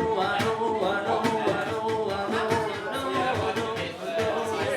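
Music with a singing voice and a steady beat.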